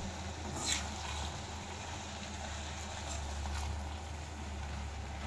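A steady low hum with a faint even hiss over it, and a brief light clink or scrape about a second in.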